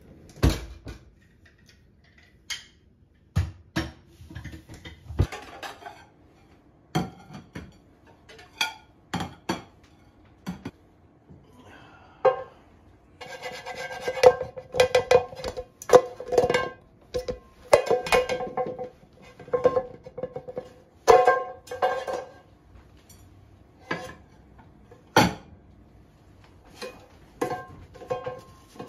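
A series of sharp knocks and scrapes, then a nonstick frying pan struck again and again by a shoe held inside it, the pan ringing with a clear metallic tone between the hits over about ten seconds in the middle.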